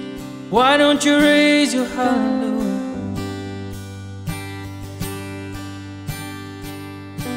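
Live worship music: an acoustic guitar strumming steadily, with a singing voice holding a sung phrase for about two seconds near the start, then the guitar carrying on alone.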